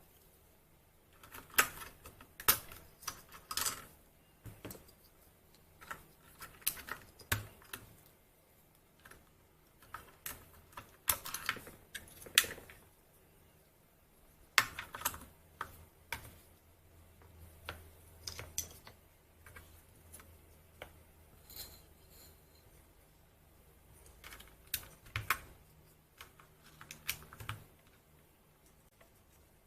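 Typing on an Anne Pro 2 60% mechanical keyboard with Gateron Red linear switches: irregular runs of clacking keystrokes with short pauses between them.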